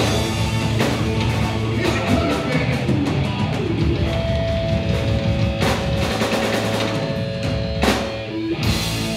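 Live rock band playing loud: electric guitar over a drum kit, with several cymbal crashes, the strongest near the end.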